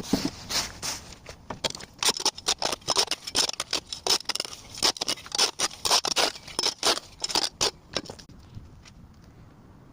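Quick run of sharp snipping or scraping strokes, several a second, that stops about eight seconds in.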